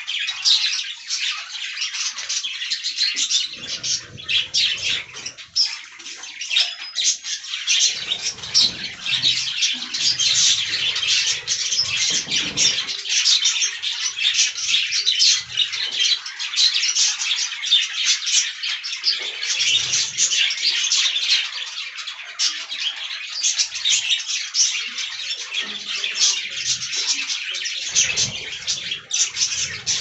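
Many budgerigars chattering at once: a dense, unbroken mass of short high chirps.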